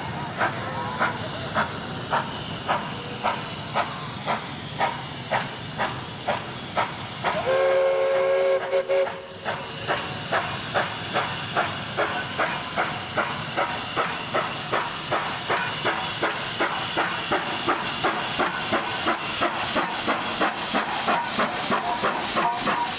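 Walt Disney World Railroad steam locomotive working under way, its exhaust chuffing in a steady rhythm that quickens from about two and a half to about four beats a second as the train picks up speed. About seven seconds in, the steam whistle sounds one chord-like blast of about two seconds.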